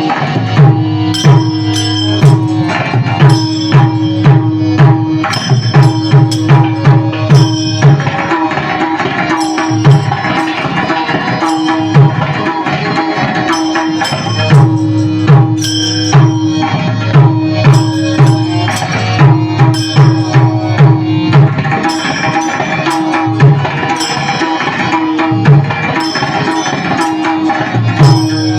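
Indian devotional kirtan music. An Indian hand drum plays a steady, driving rhythm of repeated low strokes, and small cymbals keep a bright clicking beat. A held melodic line sounds underneath.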